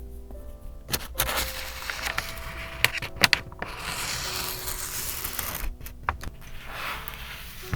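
Paper and craft materials rubbing and scraping in several long strokes, with a few sharp taps, over soft background music.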